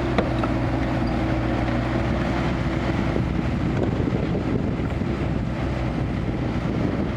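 Kubota KX161-3 mini excavator's diesel engine running steadily, with a brief click just after the start. About halfway through, its steady hum turns rougher and noisier.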